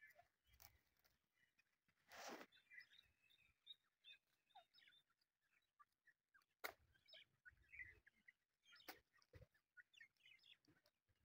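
Faint, soft high chirps from grey francolin chicks, scattered throughout, with a few brief rustles, the loudest about two seconds in.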